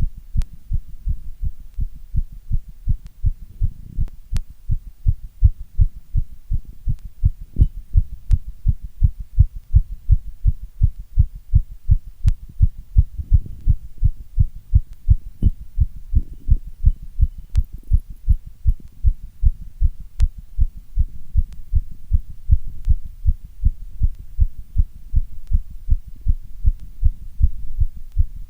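A strong heartbeat beating in a steady, regular rhythm of low thuds.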